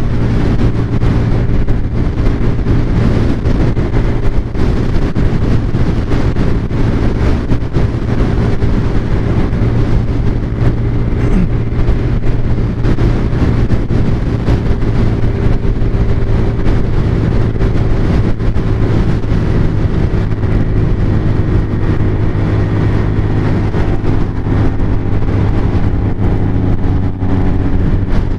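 Italika DS 150 scooter's single-cylinder engine running steadily near full throttle at its top speed on the highway, with wind noise over it. The engine note shifts slightly near the end.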